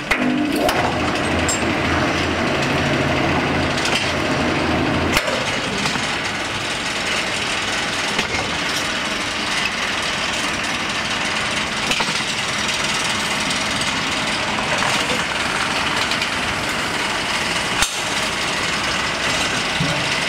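Pallet lifting machine of a concrete block production line running empty pallets: a steady mechanical clatter throughout, with a low electric motor hum for about the first five seconds that stops at a sharp clank, and another clank near the end.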